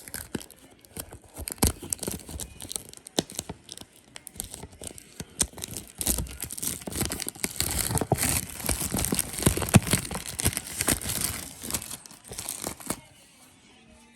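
Packaging being torn open and crinkled by hand: a dense run of rips and crackles that stops about thirteen seconds in.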